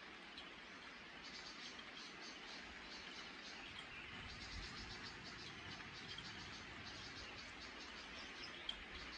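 Quiet rainy-dawn ambience: a soft, steady hiss of light rain, with trains of rapid, high chirping from wildlife that begin about a second in and grow busier midway, and one sharper chip near the end.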